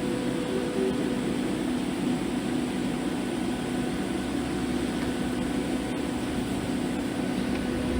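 Welding equipment giving a steady buzzing hum with a hiss over it, unchanging throughout.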